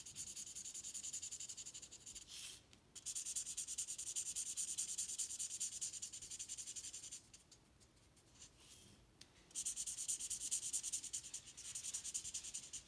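Felt-tip marker scratching on paper with quick back-and-forth strokes as the petals are coloured in. The strokes come in three spells, with short pauses about two and a half seconds and seven seconds in.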